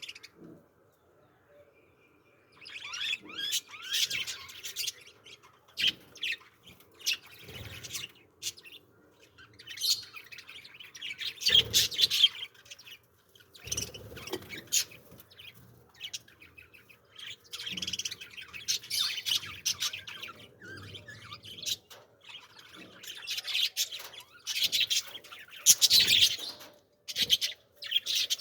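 Small birds chirping and twittering in busy bouts with short pauses between them, starting a couple of seconds in. A few low thuds are mixed in with the chirping.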